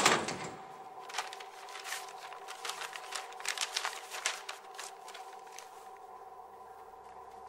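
A sharp thump right at the start, then paper and plastic crinkling in the hands as papers are pulled out of a plastic bag, fading out after about five seconds. A faint steady tone hums underneath.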